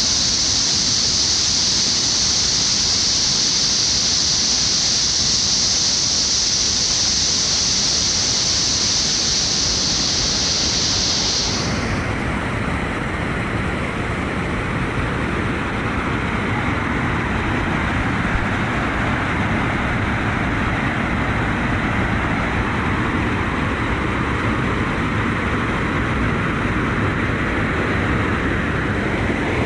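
Waterfall rushing steadily. About a third of the way in, a high hiss in the sound stops abruptly while the broad rush carries on.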